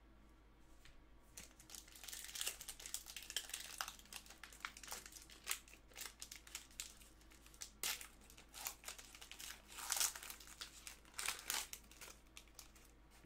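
Foil wrapper of a baseball card pack being torn open and crinkled by hand: a run of sharp crackles and rustles that starts about a second in and is loudest about ten seconds in.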